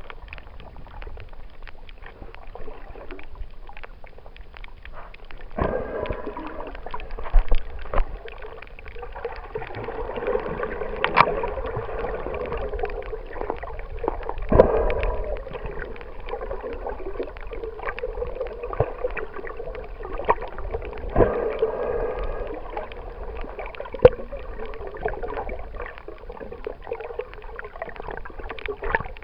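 Underwater sound picked up by a camera held below the surface while snorkeling: muffled water swishing and gurgling that swells and fades every few seconds, with a few sharp clicks.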